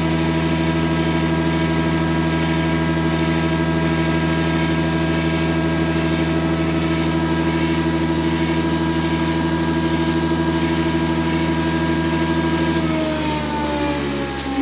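Electric drive motor of a Holzmann HOB 400V running at a steady speed with an even, pitched hum; about 13 seconds in its pitch begins to fall as it slows down. It runs smoothly, which the owner takes to mean the electrics are fine and the fault lies in a damaged gearbox.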